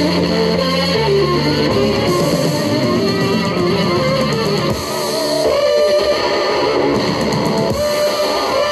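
Background music led by electric guitar, with held low notes under a wavering melody.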